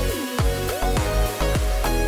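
Electronic background music with a steady beat: deep bass hits that drop in pitch about twice a second, under held and sliding synth notes.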